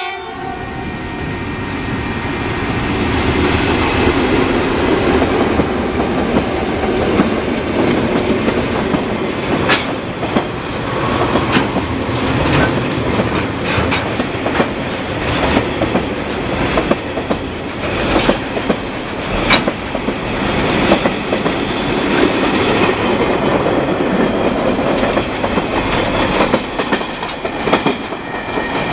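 TasRail freight train passing close by: the diesel engines of the ZP-class lead locomotive and two D-class locomotives go by first, then a long string of container flat wagons clatters past, wheels clicking over the rail joints. A steady high tone comes in near the end.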